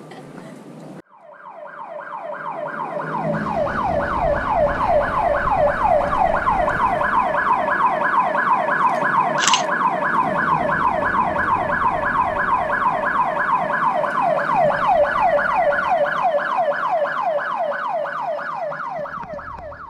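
Emergency-vehicle siren in a fast yelp: a rapid, even run of falling wails, several a second. It swells up over the first few seconds, holds, and fades away near the end over a low traffic rumble.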